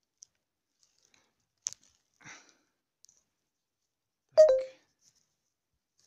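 Near silence with a few faint clicks, then one sharp, loud knock about four and a half seconds in, with a short ring after it.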